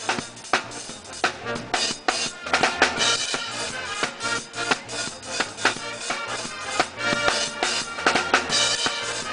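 Percussion music: drums keep a steady beat with strong hits about twice a second, and pitched instruments sound above them.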